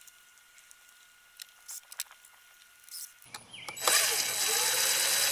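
A few light clicks of parts being handled, then about three seconds in a cordless drill-driver starts running steadily with a whine, driving a screw into the plastic housing of a pole saw's carburetor and air filter cover.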